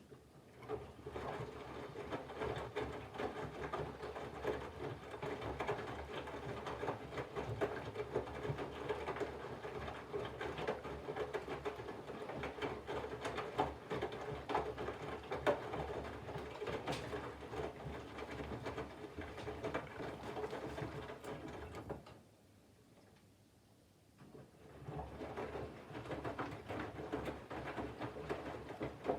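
Candy GVF4 137 LWHC/2 front-loading washing machine in its main wash: the motor turns the drum with a steady hum and the wash load rustles and patters inside. The drum stops for about two seconds near the end, then starts turning again.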